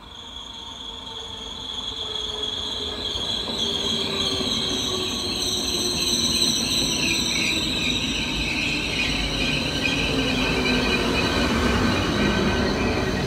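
Czech Railways class 471 City Elefant double-deck electric unit coming in along the platform. Its rumble and wheel noise grow louder over the first few seconds as it nears. Whining tones run through it, and the lower ones slide slowly down in pitch as the train slows.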